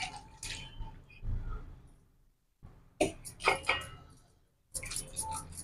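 Tamarind juice splashing and dripping through a steel mesh strainer into a steel bowl, with light clinks of the stainless-steel vessels in short clusters.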